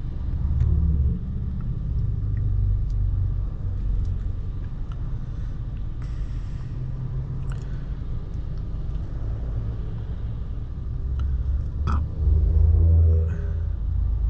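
Low, uneven rumble of a car's engine and road noise heard inside the cabin while moving slowly in traffic.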